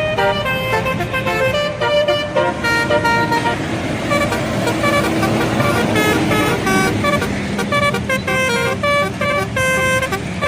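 Telolet bus horn playing a quick tune of stepping notes, several tones sounding together, over a low rumble of the bus engine and traffic.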